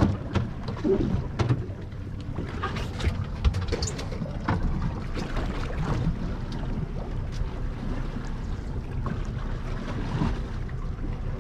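Steady low rumble of wind on the microphone and water around a small boat's hull, with scattered light knocks and splashes.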